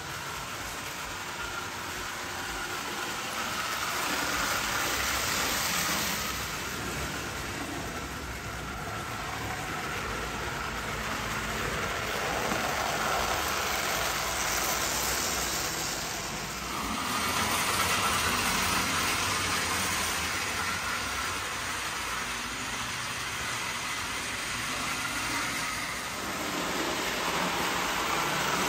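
Prewar Marx tinplate toy freight train running on its track: a steady rumbling clatter of wheels and sheet-metal cars that swells and fades several times.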